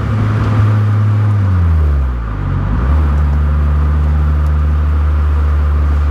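Honda CR-Z Mugen RZ's 1.5-litre four-cylinder engine, heard from inside the cabin over road noise. Its note falls in pitch for about a second and a half around two seconds in, then runs steady at lower revs.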